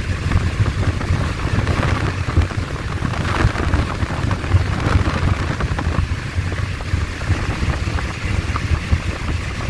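Steady rushing noise and low, fluctuating rumble of a moving train, with wind buffeting the microphone at the open window.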